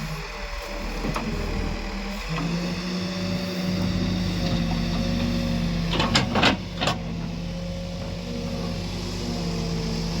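Escorts Digmax backhoe loader's diesel engine running under load with a steady hum that picks up a little over two seconds in. A few sharp metallic clanks come in quick succession about six seconds in.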